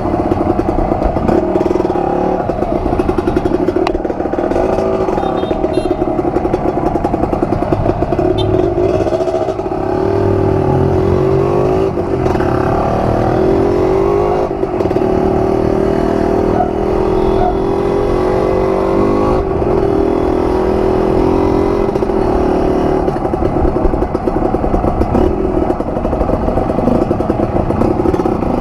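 Kawasaki KMX 125 two-stroke single-cylinder dirt bike engine running, its pitch rising and falling several times as the revs change.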